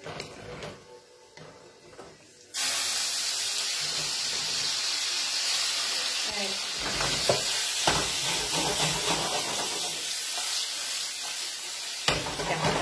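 Wet ravioli going into a hot frying pan of browned pancetta, setting off a loud, steady sizzle that starts suddenly about two and a half seconds in. A few sharp knocks of a utensil against the pan come partway through.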